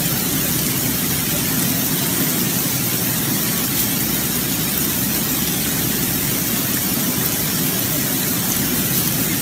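Heavy rain and floodwater on a flooded street making a steady, loud rushing hiss.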